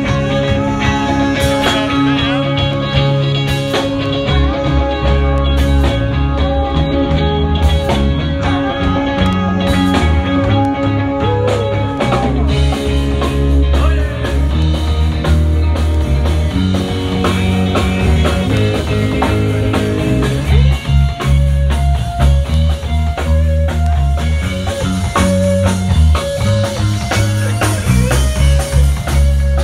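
Live rock band playing on amplifiers: electric guitar, bass guitar and drum kit.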